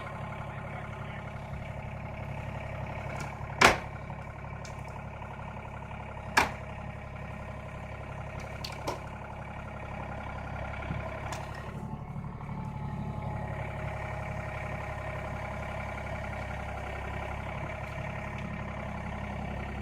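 Tractor engine running steadily as it pulls on a house's A-frame roof. Sharp cracks of the timber framing come about four and six seconds in, and a fainter one near nine seconds: the roof structure is straining and close to giving way.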